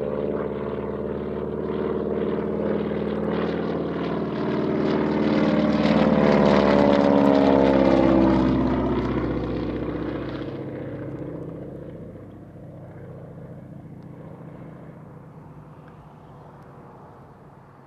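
Air Tractor crop-dusting plane's engine and propeller droning as it passes low overhead. It builds to its loudest about seven seconds in, drops in pitch as it goes by, then fades away.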